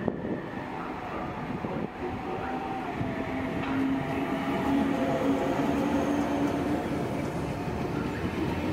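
DB Class 146.5 electric locomotive hauling Intercity 2 double-deck coaches, running into the platform. It gives a steady rumble of wheels on rail with a humming tone from the traction equipment, growing louder as the locomotive passes close by about four seconds in.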